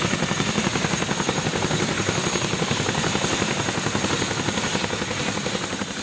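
CH-47 Chinook tandem-rotor helicopter running on the ground: a loud, steady rapid chop of its rotor blades with a thin, high turbine whine over it.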